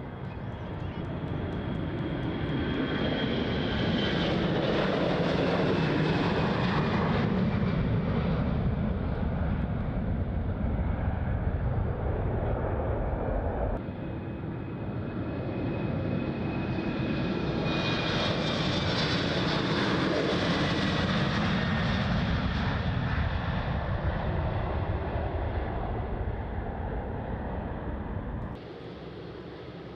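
Jet airliners taking off, heard at close range: a heavy engine rumble swells as each aircraft passes, with a high whine that slides down in pitch. The sound breaks off suddenly about halfway through and a second takeoff follows, built the same way.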